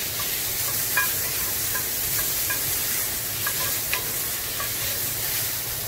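Cherry tomatoes sizzling as they char in a hot cast-iron skillet, with a few light clicks as a wooden spatula and fingers shift them around the pan.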